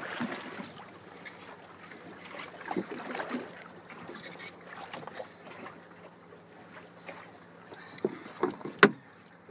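Water slapping and sloshing against the side of a small drifting fishing boat, with wind on the microphone. A few sharp knocks come near the end, the loudest about nine seconds in.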